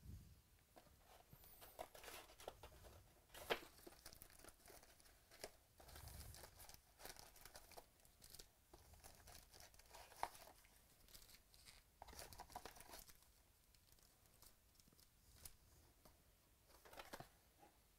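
Faint tearing of a cardboard trading-card box and crinkling of foil-wrapped card packs being handled, in scattered short rustles and clicks.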